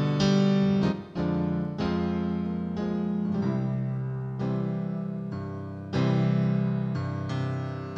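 Background piano music: slow chords, each struck and left to fade before the next, about one every one to two seconds.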